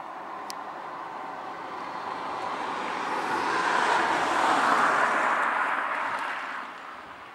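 A small car driving past: its engine and tyre noise builds, is loudest around the middle, then fades near the end.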